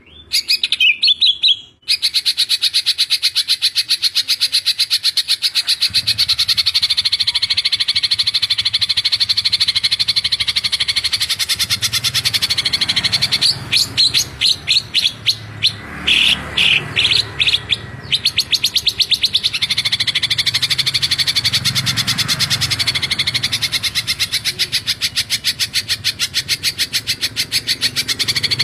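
Green leafbird (cucak ijo) singing in rapid-fire 'tembakan rapat' bursts: a dense, continuous run of very fast repeated high notes. From about 13 to 18 seconds in, the song breaks into separate short phrases before the fast run resumes.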